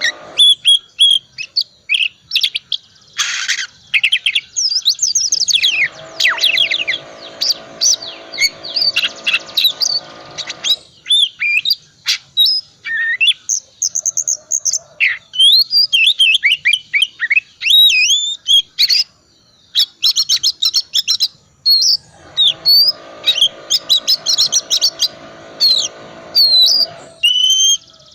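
Oriental magpie-robin singing a loud, fast, varied song full of mimicked phrases, the kind of song played as a lure to set other magpie-robins singing. Twice, for several seconds, a low steady buzz sounds underneath.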